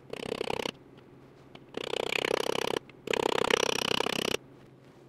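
Body hammer tapping rapidly on a chrome wheel cover in three quick runs of light blows, working a stretched hump from the back side to try to shrink it.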